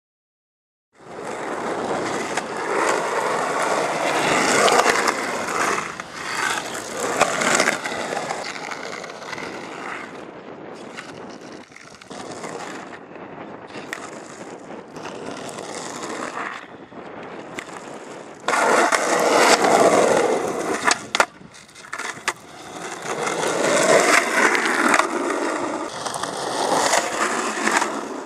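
Skateboard wheels rolling over rough concrete, a gritty rumble that swells loud as the board passes close and fades as it moves away. A few sharp clacks come about two-thirds of the way through.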